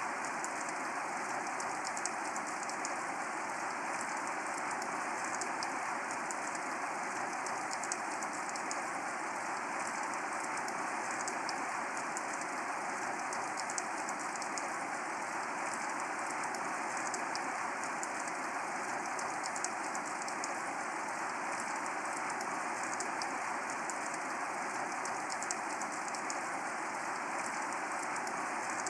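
Steady rain falling: an even hiss filled with many small drop ticks, now and then a slightly louder single drop.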